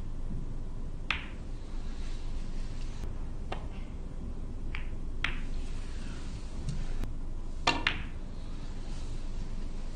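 Snooker balls clicking as shots are played: cue tip on cue ball and ball striking ball, about six sharp clicks, the loudest a quick pair about three-quarters of the way through, over a low steady hall hum.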